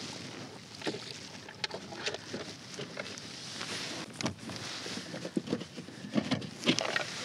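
Scattered clicks and knocks of gear being handled on a plastic fishing kayak, over a steady wash of water against the hull.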